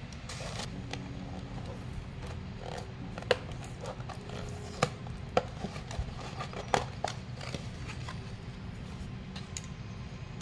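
A paperboard takeaway box being handled and opened on a desk: a few sharp taps and knocks with light rustling, over a steady low background hum.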